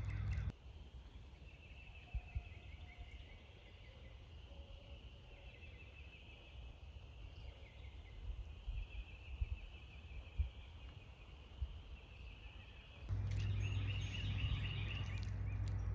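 Quiet outdoor background with faint, repeated high bird calls and a few soft knocks; about 13 seconds in, a steady low hum comes in and the background gets louder.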